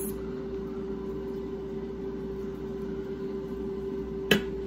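A steady background hum with one constant low tone, like a running kitchen appliance, and a single sharp click near the end.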